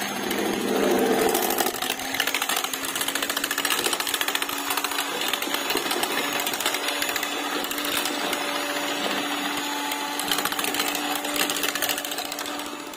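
Electric mixer beating chocolate cake batter in a stainless steel bowl: a steady motor hum with a fast metallic rattle, the hum stepping up slightly in pitch about two seconds in.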